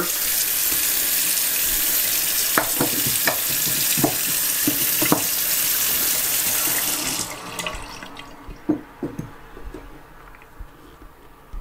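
Bathroom sink faucet running a stream of water into the basin, being tested after its cartridge was replaced, then shut off about seven seconds in. A few light knocks come during the flow and after it.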